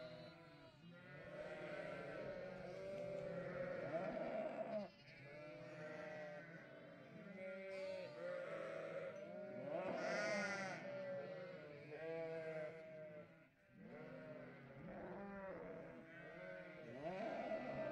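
A flock of ewes and young lambs bleating, with many overlapping calls at different pitches, one after another without a break.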